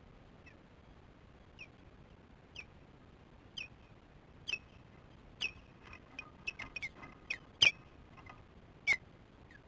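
Osprey alarm calling at an intruder near the nest: a series of short, sharp, high whistled chirps. They come about once a second at first, then faster and louder, with the loudest calls near the end.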